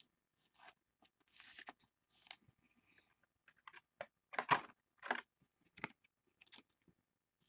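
Clear plastic card sleeve and holder rustling and clicking faintly as a thick trading card is worked into it, in scattered short bursts, busiest about halfway through.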